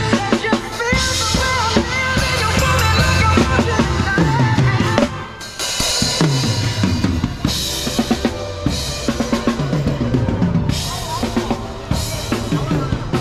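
Drum kit played live, with bass drum, snare and recurring cymbal crashes, over recorded music with a deep bass line that repeatedly slides down in pitch.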